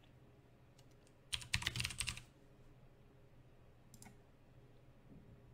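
Typing on a computer keyboard: a quick run of keystrokes lasting about a second, starting just over a second in, then one lone click near four seconds.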